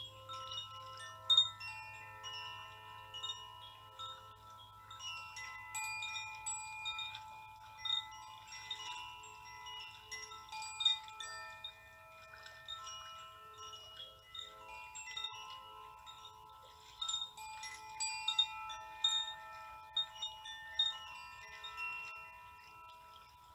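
Wind chimes ringing: many metal chime tones at different pitches, struck at irregular moments, each note ringing on and overlapping the others.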